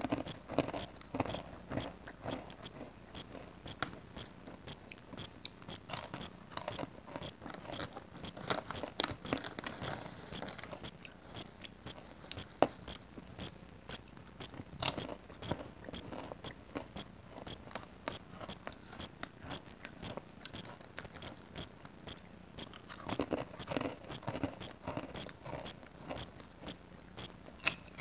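Close-miked chewing of crunchy caramel popcorn and pretzel pieces: irregular crisp crunches and mouth sounds throughout.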